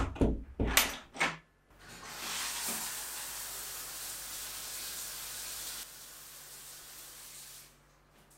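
A few clicks and knocks from the bathroom door as it shuts, then a shower running behind the closed door: a steady hiss of spraying water that drops in level about six seconds in and stops near the end.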